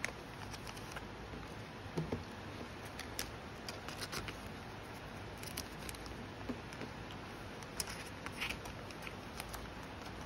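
Clear plastic binder sleeves crinkling and photocards clicking and sliding as they are handled and tucked into the pockets, in many short irregular crackles over a steady background hiss.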